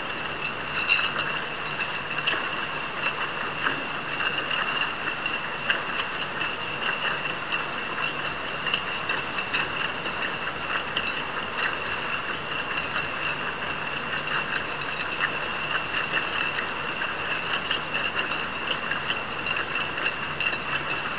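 Bottling-line machinery running steadily: a constant high whine over a faint low hum, with many small irregular clicks and clinks.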